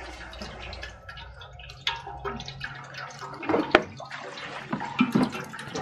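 Cooking oil poured in a thin stream into a steel pot, trickling and splashing on the pool of oil, with a few sharper clicks about three and a half seconds in.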